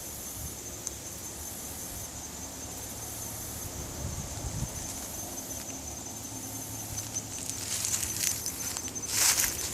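An insect trilling steadily at a high pitch throughout. About nine seconds in, a footstep crunches in dry fallen leaves.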